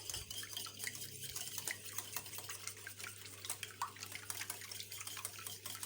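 Raw eggs with vanilla being beaten by hand in a bowl: a rapid, continuous run of small clicks and liquid sloshing as the utensil strikes the bowl.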